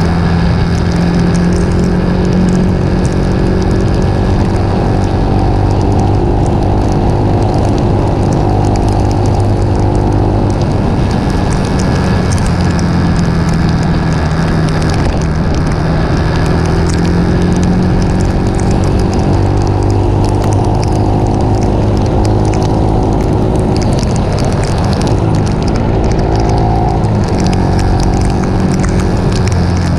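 Motorcycle engine running steadily while riding on a wet road, with wind and rain noise on the microphone. The engine note shifts pitch twice, about a third of the way in and again near the end, as the bike slows and speeds up.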